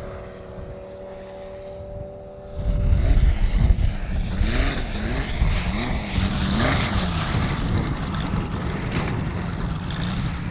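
Radio-controlled model aircraft engine. A quieter steady hum gives way about two and a half seconds in to a loud run, its pitch swinging up and down several times before settling.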